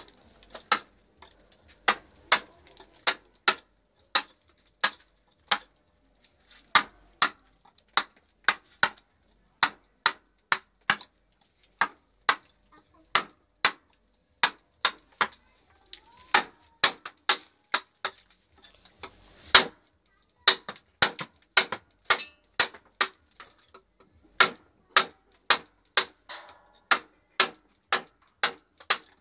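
Mallet striking a wood-carving chisel as it cuts into a block of wood: sharp knocks, about two a second in runs broken by short pauses, with one heavier blow about twenty seconds in.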